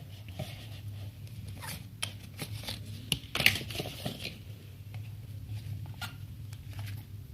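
Box contents being handled during an unboxing: scattered rustles, clicks and taps of packaging and paper, the sharpest about three and a half seconds in, over a steady low hum.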